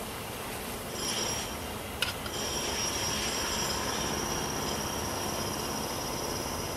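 Steady drone of honeybees flying around an open hive, with one sharp click about two seconds in.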